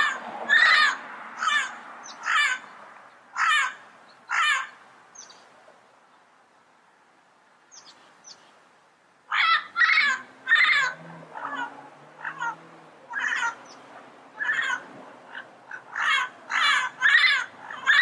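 Yellow-headed amazon parrot calling in a series of short squawks, about one a second. After a pause of about four seconds the calls resume in a quicker, denser run.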